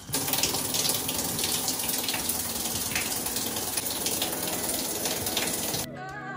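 Shower running over a bathtub: water spraying from a hand-held shower head in a steady rush that starts just after the mixing valve is turned and cuts off shortly before the end, where plucked-string music comes in.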